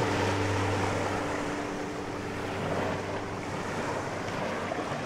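Ocean surf washing steadily, with the last sustained chord of acoustic guitar music fading out over the first couple of seconds.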